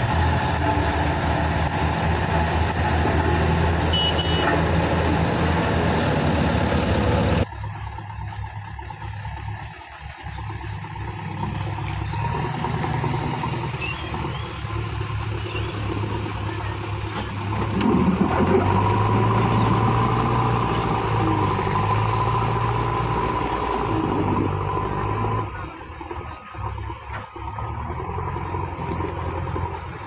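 Heavy diesel engines running: a road roller's and a tractor's for the first seven seconds, then, after a sudden change, a JCB 3DX backhoe loader's diesel engine. The backhoe's engine gets louder about 18 s in, as if under load, and drops back about 25 s in.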